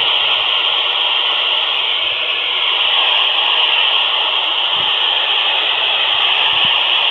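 Steady hiss of FM static from an Alinco handheld radio's speaker, tuned to the IO-86 satellite voice repeater with no station talking.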